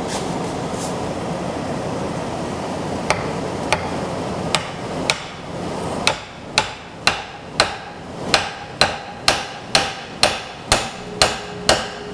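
Hammer blows on the top end of a wooden hammer handle, driving it down into the eye of a 10-pound railroad sledge head to seat it. A few spaced strikes come first, then a steady run of about two a second, all over a steady background noise.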